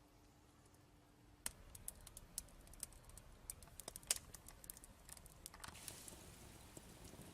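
Irregular light clicks and taps, like small hard objects being handled, starting about a second and a half in after near silence; the sharpest tick comes about four seconds in.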